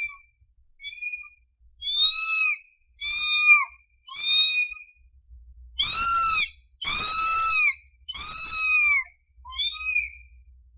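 Young kitten mewing over and over, about one high-pitched call a second, each call rising then falling in pitch; the calls are loudest in the middle. The calls of a hungry kitten calling for its mother.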